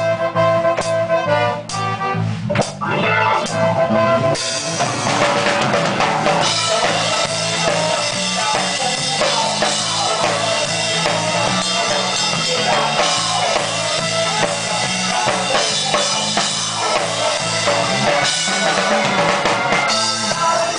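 Ska band playing live, heard from beside the drum kit, with the drums loud and close: bass drum, snare and rimshots over the band. About four seconds in, the music thickens into a much denser full-band sound.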